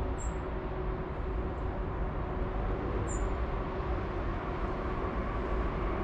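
Steady rumble of a train running along the Rhine valley railway below, with two short high chirps, one right at the start and one about three seconds in.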